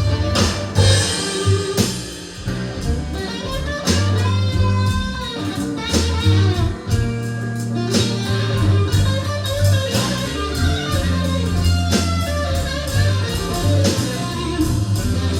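Live blues band playing an instrumental passage after the sung verse: a lead guitar with notes that bend up and down over bass and drums.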